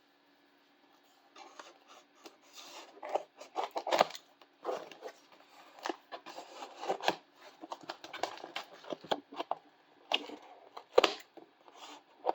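A watch's packaging being handled and opened by hand: irregular scraping and rustling with sharp clicks and knocks, starting about a second in.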